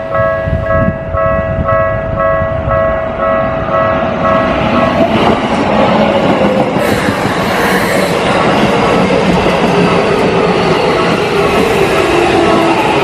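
Level crossing's electronic warning bell ringing in a steady two-tone pulse, about two and a half strikes a second. About five seconds in, a train passing over the crossing takes over: loud wheel and rail noise with a motor whine slowly falling in pitch.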